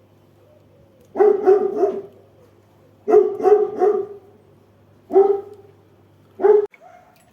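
A hound giving short, harsh bark-like sounds in bursts: three in quick succession about a second in, about four more around three seconds in, then two single ones.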